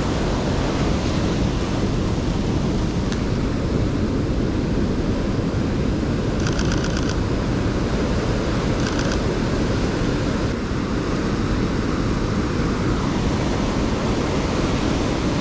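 Ocean surf breaking and washing over a rocky shore, a steady rush with wind buffeting the microphone. About six seconds in, a camera shutter fires a quick burst of about eight clicks, and a few more clicks follow about nine seconds in.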